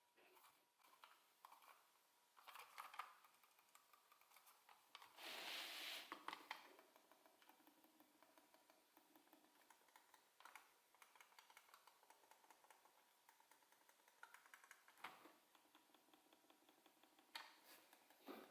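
Faint, scattered small clicks and taps from handling a computer mouse's small plastic parts, with a longer rustling scrape about five seconds in.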